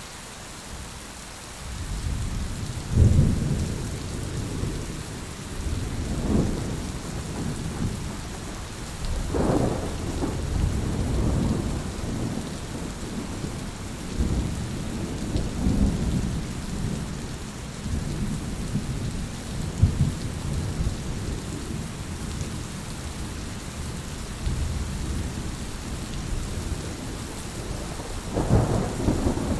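Steady rain with rolling thunder: a low rumble starts about two seconds in and swells and fades several times, building again near the end.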